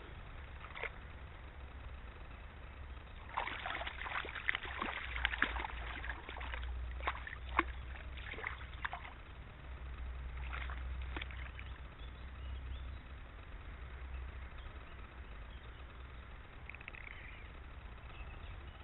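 A small hooked trout splashing and thrashing at the surface of a shallow stream while being grabbed by hand, in irregular splashes from about three seconds in until about nine seconds, then a short flurry again around eleven seconds, over a low steady rumble.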